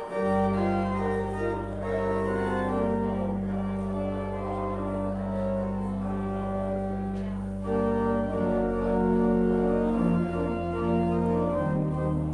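Church organ playing slow, sustained chords over a long-held low pedal note. The harmony shifts about eight seconds in and again near the end.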